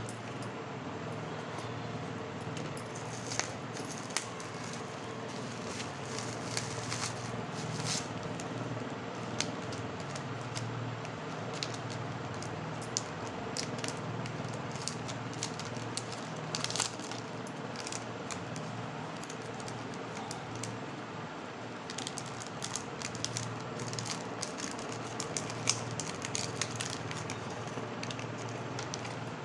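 Packaging being handled and opened: scattered crinkles and sharp clicks over a steady low hum.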